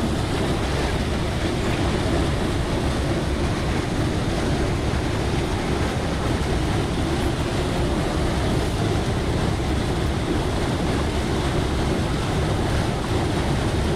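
Waterfall pouring into a rock pool, heard close to the churning water: a steady, unbroken rush of water.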